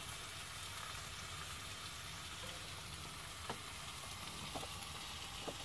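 Food sizzling steadily in a frying pan, a few faint light clicks over it near the end.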